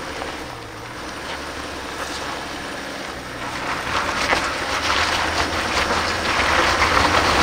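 Toyota LandCruiser 300's twin-turbo V6 diesel running under load as it crawls up a rutted gravel climb, with tyres crunching over stones. It grows louder about halfway through as the vehicle comes up close, then cuts off abruptly at the end.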